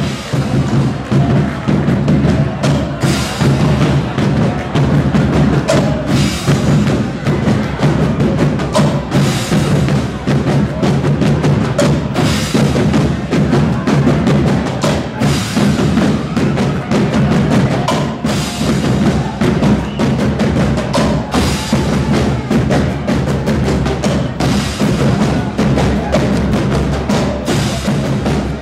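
Guggenmusik carnival band playing live, driven by heavy drumming, with a loud crash about every three seconds.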